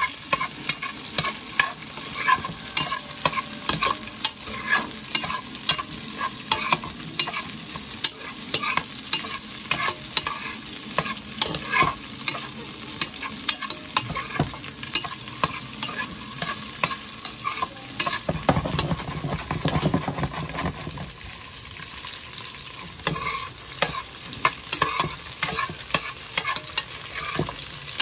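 Sliced onion and garlic sizzling in hot oil in a Dutch oven while a metal spoon stirs them, clicking and scraping against the pot many times a second.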